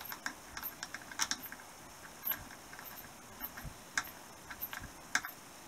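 Irregular light clicks and taps, a few of them sharper than the rest, scattered over a quiet background.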